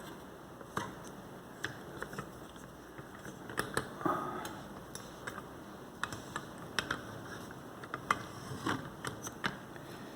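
Small vise holding a lock cylinder being loosened and repositioned by hand: irregular light metal clicks and knocks, about a dozen, the sharpest a little past halfway.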